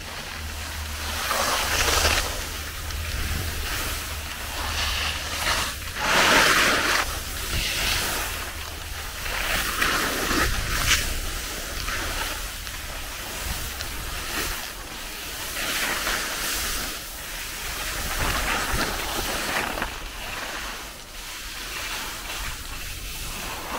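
Skis scraping over packed, groomed snow through a run of turns, the noise swelling and fading with each turn, over a steady low rumble of wind on the camera's microphone.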